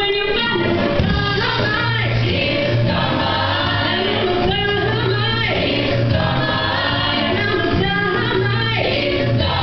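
A stage-musical cast singing an ensemble number together over instrumental accompaniment, with long held bass notes underneath.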